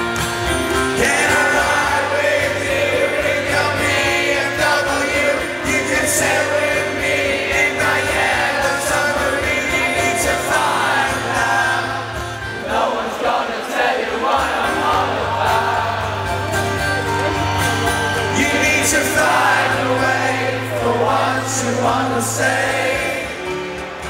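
Live rock song recorded from the audience through the PA: a male lead vocal over acoustic guitar, with held bass notes underneath and the crowd singing along.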